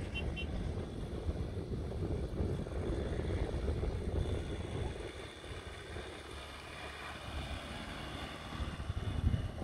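A four-wheel-drive engine running steadily, with wind rumbling on the microphone.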